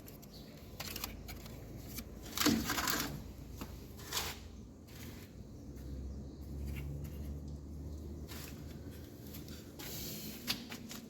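Hands handling plastic parts and a circuit board: scattered light clicks, knocks and short rustles, with a faint low hum for a few seconds in the middle.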